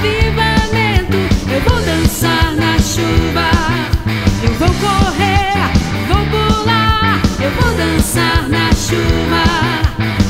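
Gospel rock band in an instrumental solo section: an electric guitar plays quick lead lines with bends and vibrato over drums and bass.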